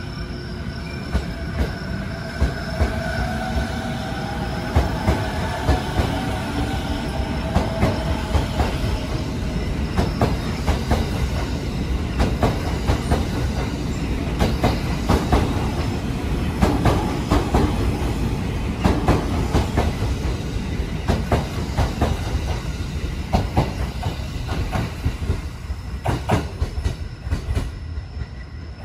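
JR electric commuter train pulling out of the station: its motors whine, rising in pitch over the first several seconds as it gathers speed. Then the wheels clatter rhythmically over the rail joints as the cars run past.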